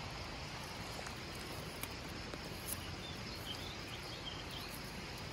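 Steady outdoor background noise with faint, high chirping of insects and a couple of soft clicks.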